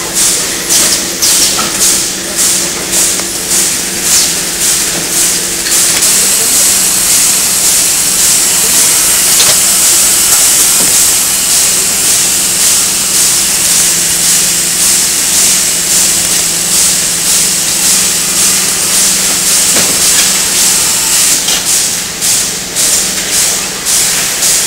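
Bottle case-packing machine running: a loud steady hiss over a constant hum, pulsing about twice a second near the start and again near the end.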